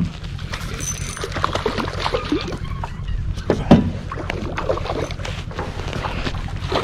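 Water splashing and spinning-reel tackle clicking and knocking as a hooked kokanee salmon is worked toward the landing net, over a steady low rumble, with one loud knock a little under four seconds in.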